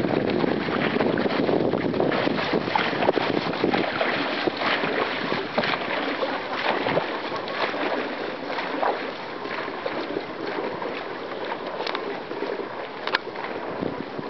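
Dragon boat paddles splashing and churning the water in many quick irregular strokes, fading gradually as the boat pulls away.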